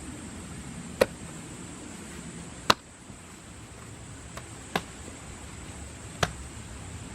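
Four sharp, short knocks spaced irregularly a second or two apart, plus one fainter tap, over a steady background hiss.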